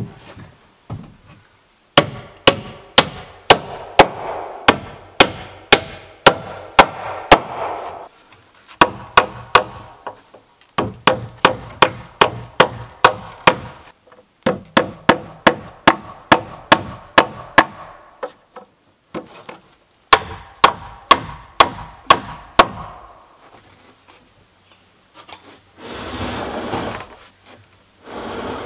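Hammer driving nails into wooden porch deck boards: several runs of quick, regular strikes, about two to three a second, with short pauses between runs. Near the end, a short scraping rustle.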